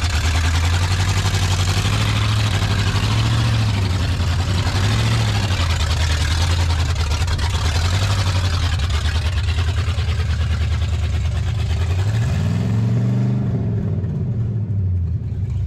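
The engine of a 1988 Ford E250 camper van running and being revved in repeated swells as the van pulls away under its own power after sitting over 20 years; the sound fades near the end as it moves off.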